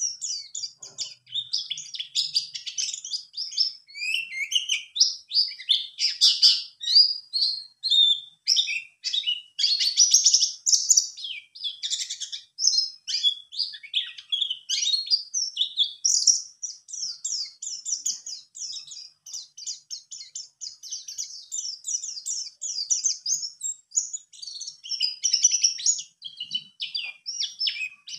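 A caged white-eye (pleci, buxtoni race) singing a long, fast, unbroken twittering song of high chirps.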